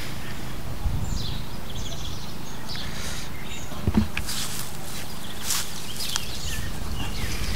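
Birds chirping in short, quick calls over a steady low rumble, with a single knock about four seconds in.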